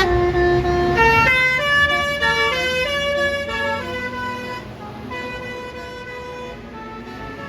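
A bus's basuri telolet multi-tone air horn plays a quick melody. It starts suddenly, and its held notes step up and down in pitch for about four seconds before fading.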